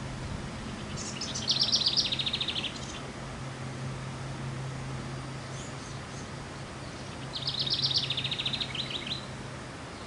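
House wren singing: two rapid, high, trilled song phrases of about a second and a half each, the first about a second in and the second about seven seconds in.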